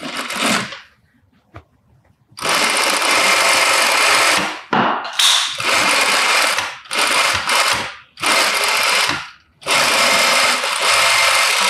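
Industrial straight-stitch sewing machine stitching in about five short runs of one to two and a half seconds each, stopping briefly between runs as the fabric is turned and guided along the pocket seam.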